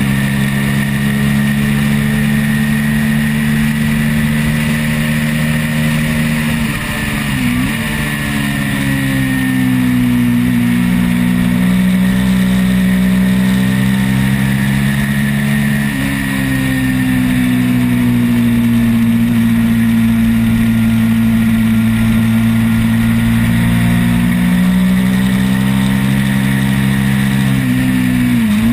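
Twin-cylinder race motorcycle engine running hard at high revs, with wind rushing over the microphone. Its pitch drops and jumps sharply at gear changes about seven seconds in, about halfway through, and again near the end.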